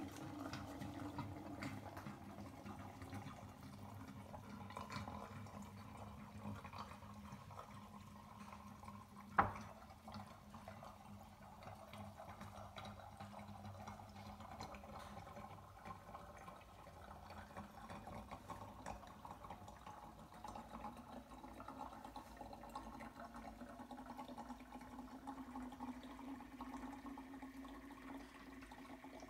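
Water swirling in a vortex down through the taped necks of two plastic bottles into the lower bottle, a faint steady flow with a low tone that rises slowly near the end as the lower bottle fills. A single sharp click about nine seconds in.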